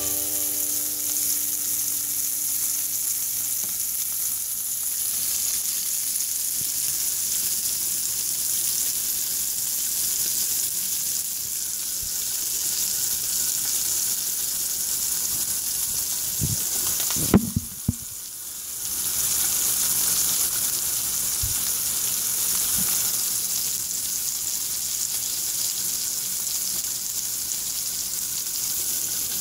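Bacon-wrapped grilled cheese sandwich frying in a skillet: bacon fat sizzling with a steady hiss. A couple of short knocks and a brief lull come about two-thirds of the way through.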